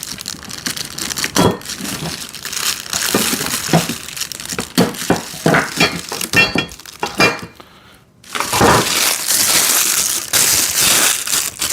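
Plastic packaging wrap crinkling and rustling as it is pulled off and handled, with scattered sharp clicks and knocks. It eases off briefly about eight seconds in, then resumes louder and more continuous.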